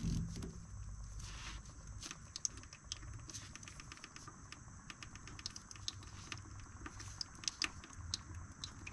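Faint, irregular pattering of engine oil dripping from a spin-on oil filter being unscrewed by hand, falling onto newspaper and into a drain pan.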